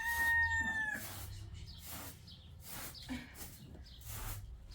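Rooster crowing: one drawn-out call that dips slightly in pitch and ends about a second in, followed by scattered soft clicks and rustles.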